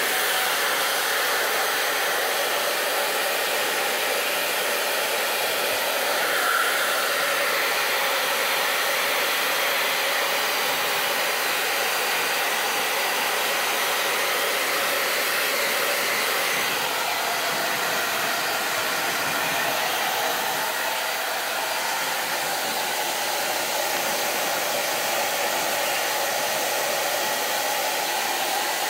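Ovente handheld hair dryer running steadily, a constant loud whoosh of blown air.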